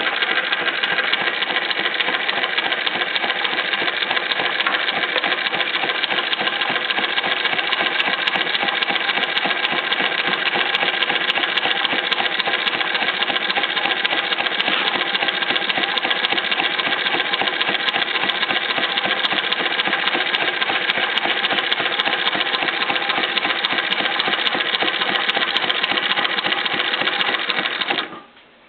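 Consew 225 compound-feed walking foot industrial sewing machine running steadily at speed, stitching continuously with a fast, even clatter, then stopping near the end.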